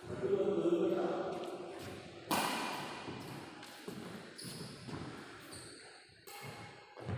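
Badminton racket strikes on a shuttlecock during a rally: a few sharp cracks, the loudest about two seconds in, each echoing in a large hall.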